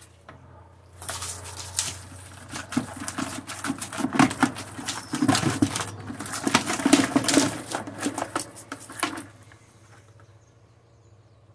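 Freshly caught tilapia tipped from a dripping mesh keepnet into a plastic bucket: a dense patter of wet slaps, splashes and flapping against the net and bucket. It starts about a second in and stops about nine seconds in.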